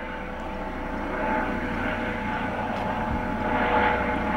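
Helicopter approaching overhead, its engine and rotor sound growing steadily louder.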